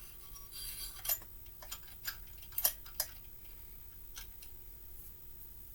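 A series of light metallic clicks and taps, about half a dozen spread irregularly, from small engine parts and tools being handled on a workbench, over a faint steady hum.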